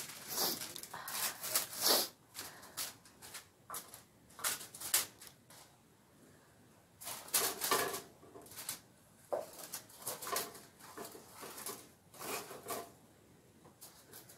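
A wooden spoon scooping chopped vegetables out of a steel bowl onto parchment paper and aluminium foil. It comes in irregular bunches of scrapes, clacks and paper-and-foil rustling as the pieces drop.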